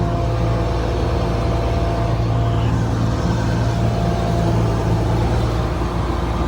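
Combine harvester's diesel engine running steadily while the machine is driven slowly on its hydrostatic drive, with an even low hum.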